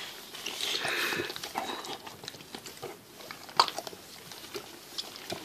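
A boxer bitch licking and nuzzling her newborn puppy: soft wet licking and smacking sounds with scattered small clicks.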